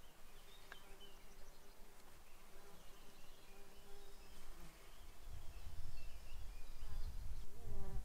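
Insects buzzing over a summer field in a steady drone, with faint high chirps. From about halfway on, gusts of wind rumble on the microphone.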